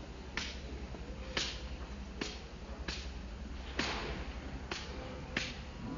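Baby macaque biting and chewing a crunchy biscuit stick: sharp crunching snaps, seven of them at about one a second.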